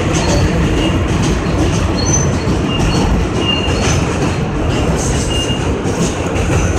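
R160A subway train running along the track, heard from inside the front car: a loud, steady rumble of wheels on rail. Short, high wheel squeals come and go, with scattered clacks.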